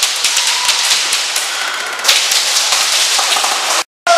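Airsoft guns firing in rapid bursts, a dense crackle of sharp shots, cut off abruptly for a moment near the end.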